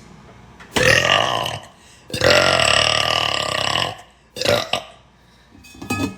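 A person belching several times: a loud belch about a second in, then a long drawn-out belch of about two seconds, followed by two shorter ones near the end.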